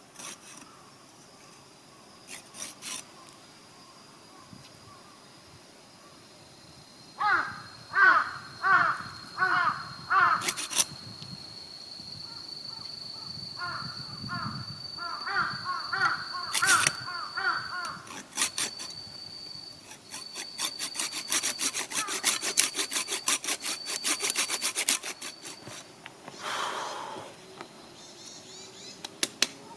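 Crows cawing outdoors: a run of four or five loud caws about a quarter of the way in, then a second, more rapid series a few seconds later. Past the middle comes a fast run of sharp clicks lasting several seconds.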